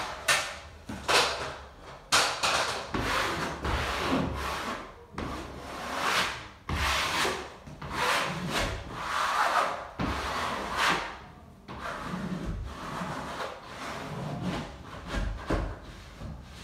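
Plastic wallpaper smoother swept again and again across freshly hung wallpaper: a run of quick, irregular rubbing swishes, quieter after about eleven seconds.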